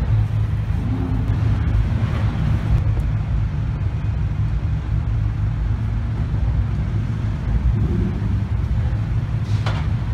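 Low, steady exhaust rumble of lowered cars creeping along at low revs, with a brief sharp noise near the end.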